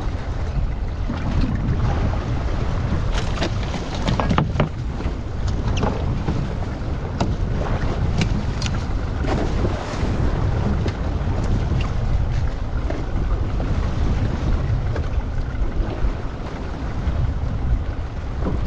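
Wind buffeting the microphone and sea water moving around a small fishing boat at sea: a steady heavy rumble, with scattered short sharp clicks and knocks.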